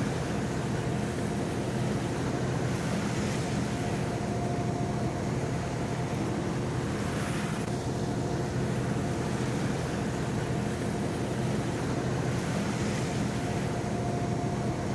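Trawler yacht's inboard engines running steadily underway, a constant drone with wind and water rushing over it, and a brief swell of rushing noise about seven seconds in.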